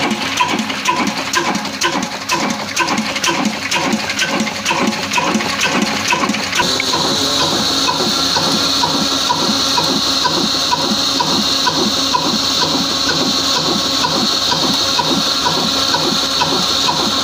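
Old horizontal stationary diesel engine running steadily under load with regular, even beats, driving a flour mill (chakki) by belt. About six seconds in, a loud steady hiss of the mill grinding comes in over the engine beats.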